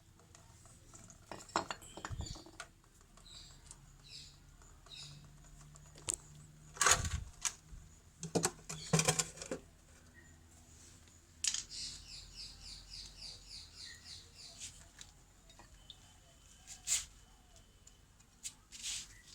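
Intermittent metallic clinks and knocks of hand tools and parts being handled while a brake caliper is taken off, with a rapid run of high ticks about twelve seconds in.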